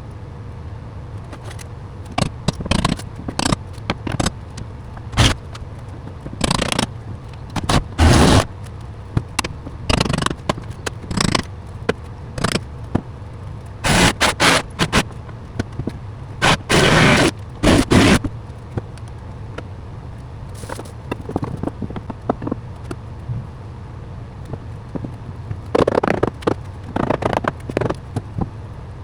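Carpentry work on lumber: irregular knocks, clicks and clatter, with a few longer scraping bursts of about a second in the middle, over a steady low hum.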